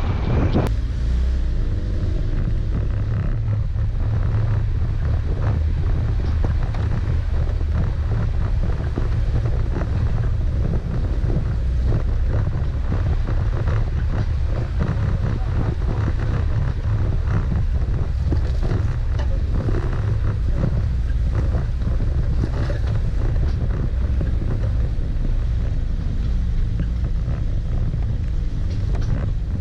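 Daihatsu Feroza 4x4 driving along a rough dirt track, a steady low engine and road rumble with wind buffeting the microphone. Frequent small knocks and rattles come from the body and the bumpy ground.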